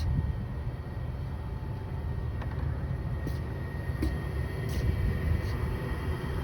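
Steady low outdoor rumble, uneven from moment to moment, with a few faint ticks.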